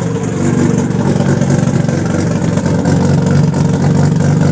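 Freshly rebuilt Mazda RX-7 13B twin-rotor rotary engine running steadily just after its first start-up.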